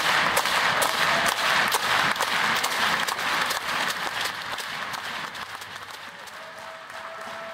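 A large crowd applauding, with many separate claps standing out. The applause thins out and dies down over the last few seconds.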